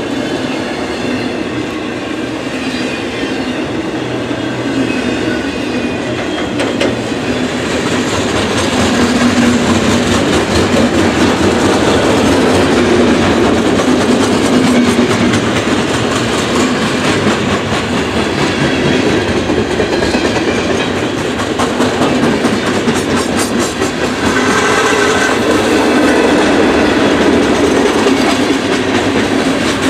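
Freight cars of a long manifest train rolling past at speed, steel wheels clattering over the rail joints in a steady clickety-clack; it grows louder about eight seconds in.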